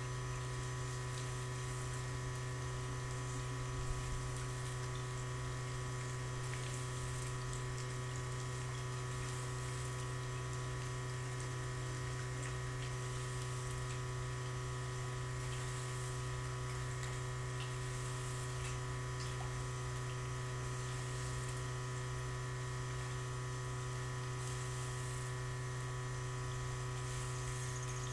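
Steady electrical hum: a strong low drone with several constant higher tones over it, and one small click about four seconds in.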